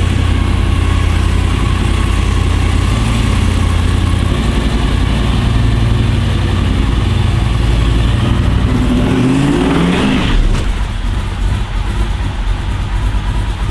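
Chevrolet Chevelle's 396 big-block V8 running steadily, with one rev rising in pitch about nine seconds in before it settles again.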